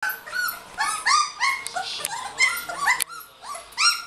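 A litter of young goldendoodle puppies whining and yipping, short high cries overlapping several times a second.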